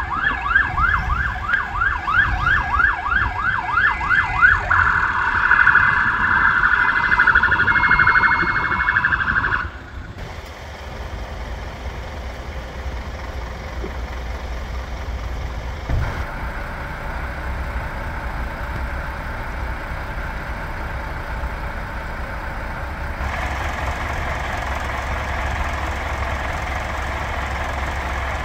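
An emergency vehicle's siren yelps in fast rising sweeps, about three a second. About four and a half seconds in it switches to a rapid pulsing tone, then cuts off just before ten seconds. After that comes the steady low rumble of idling vehicle engines with street noise.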